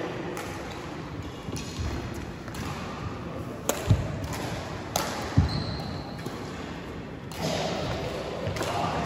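Sharp hits and deep thuds in a large, echoing hall: two pairs of impacts, about four and five and a half seconds in, over a steady background murmur.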